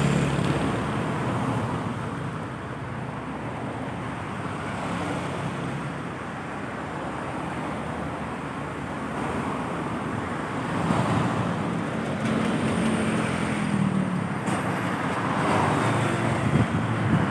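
Road traffic going by, a steady rush of tyres and engines; about eleven seconds in a heavier vehicle's engine hum comes up and the traffic grows louder.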